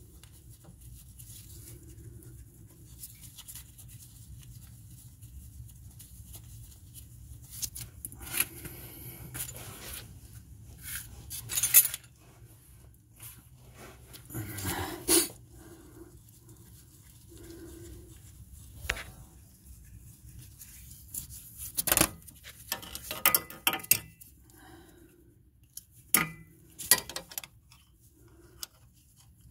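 Irregular metallic clinks and taps as nuts are threaded by hand onto the bolts of a new Honda Odyssey transmission mount, with a few sharper knocks spread through.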